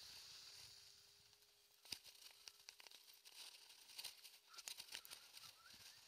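Faint, muffled ride noise of an electric scooter: a steady hiss and a thin steady whine, then from about two seconds in a run of scattered clicks and knocks.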